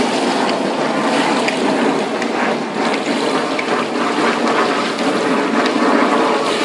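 Steady splashing and churning water of a busy swimming pool, with a swimmer kicking along on a foam float.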